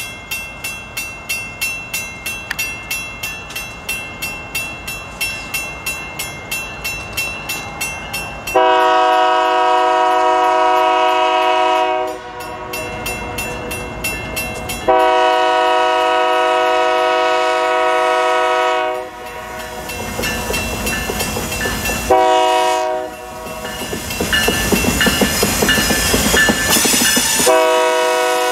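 Approaching EMD diesel locomotive ringing its bell at about three strokes a second, then sounding its multi-note horn in two long blasts, a short one and a final long one: the grade-crossing signal. Engine rumble and wheel clatter grow between the blasts as it nears.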